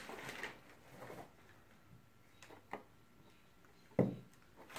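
Quiet room tone broken by a few light clicks and taps, with one sharper knock about four seconds in: small objects being handled and set down on a work surface.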